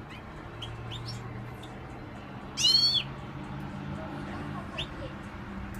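Pet songbirds calling, with soft short rising chirps and one loud call about two and a half seconds in that arches up and down in pitch for about half a second.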